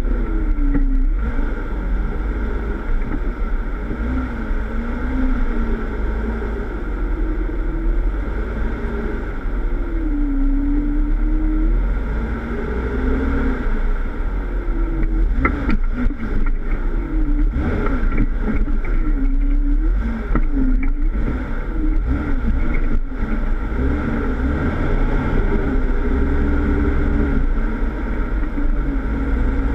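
Jeep Wrangler engine, heard from the front bumper, running at low speed with its pitch rising and falling again and again as the throttle is worked over rough ground. A few sharp knocks come in the second half.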